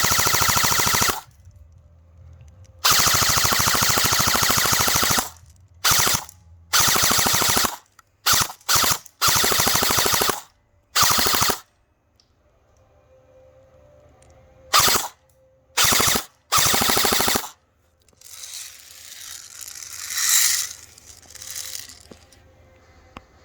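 G&G ARP 9 airsoft electric rifle with 13:1 high-speed gears firing a string of full-auto bursts, its gearbox cycling in a rapid buzzing rattle. The bursts come in about eleven strings, some over two seconds long and some short blips. Near the end a softer, uneven noise follows.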